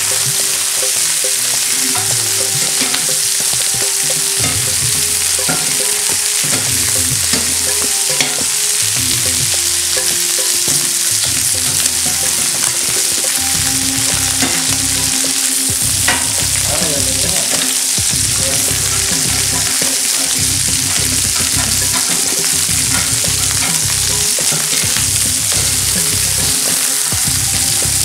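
Chicken pieces sizzling steadily in hot oil in an iron skillet, while a slotted metal spatula scrapes the pan and turns them, with irregular knocks and clicks of metal on iron.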